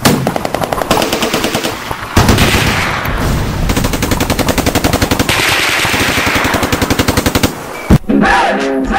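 Automatic gunfire, rapid shots at about ten a second, in two long bursts with a short break about two seconds in. It stops about seven and a half seconds in, and a single sharp bang follows.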